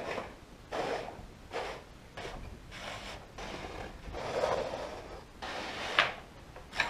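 Wooden pins of a plywood pin art wall sliding in their holes as a hand pushes into the tiles: a run of short wooden rubbing swishes, the sharpest about six seconds in.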